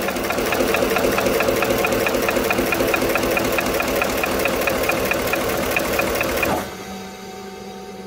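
GM 6.0 L V8 turning over with its valve cover off: a fast, even mechanical clatter that stops abruptly about six and a half seconds in. One rocker arm stays still, which the mechanic takes for a collapsed hydraulic lifter on cylinder four.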